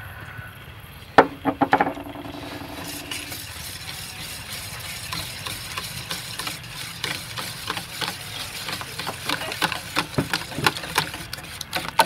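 Wire whisk beating eggs and oil in a stainless steel mixing bowl: rapid, irregular clinks and scrapes of the wires against the metal. Before the whisking gets going, a couple of sharp knocks and a steady hum lasting about two seconds.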